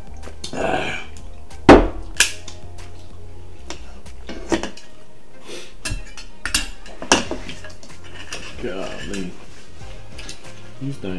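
Several sharp clinks of a metal spoon and tableware, as seafood stew is spooned out of a glass serving bowl. The loudest clink comes about two seconds in.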